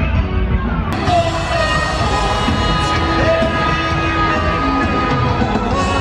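Music with long held notes, growing fuller about a second in.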